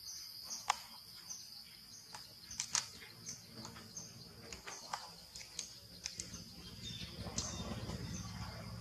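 Forest ambience: a steady high-pitched insect drone with short bird chirps repeating about twice a second, and scattered sharp clicks of leaves and twigs. A low rumble swells near the end.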